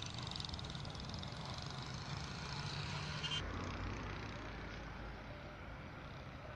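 Tanker truck's engine running as it drives past, with a second vehicle following. The sound cuts off abruptly about three seconds in to a quieter low rumble.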